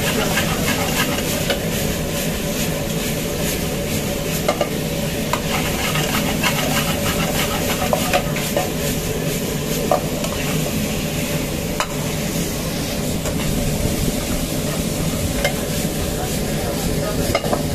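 A steel ladle stirring and tossing sauced fried cauliflower in a metal wok, with the sauce sizzling and sharp clinks and scrapes of the ladle against the pan, over a steady hum.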